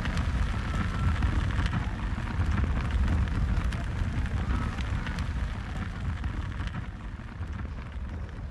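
A large fire burning, a low steady roar with scattered crackles, fading away over the last couple of seconds.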